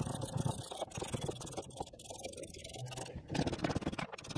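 A 3/4-inch ratcheting wrench clicking in quick, repeated strokes as it turns a shock absorber's mounting nut.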